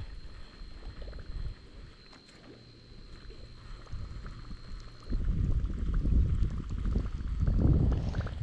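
Low rumble of wind buffeting the microphone outdoors on the river, quieter for a few seconds, then louder from about five seconds in; a faint steady high tone sounds until then.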